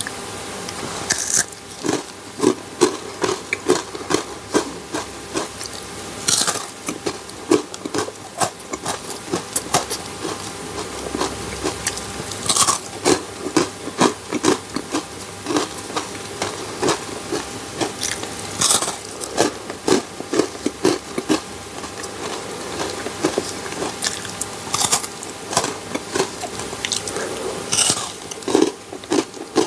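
Close-miked eating of a milk chocolate bar: pieces bitten off with sharp snaps, then chewing with crackling mouth sounds, in dense irregular runs of clicks over and over.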